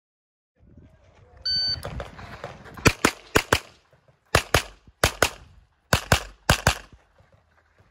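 A shot timer's single electronic start beep, then about a dozen gunshots in quick pairs.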